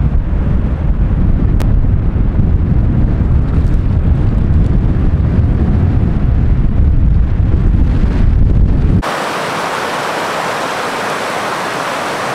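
Strong wind buffeting the microphone with a loud, gusty rumble. About nine seconds in it cuts off abruptly to the steady hiss of a rushing, rocky mountain creek.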